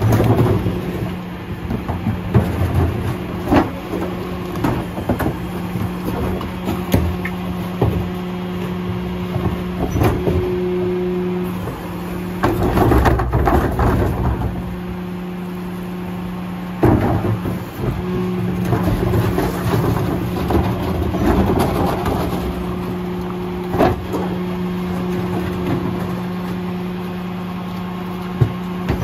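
Mack LR McNeilus rear-loader garbage truck running with a steady hum while carts are emptied into its hopper: irregular knocks and clatter of plastic carts and falling trash, with a louder stretch of rattling about twelve seconds in as the cart tipper lifts and dumps a cart.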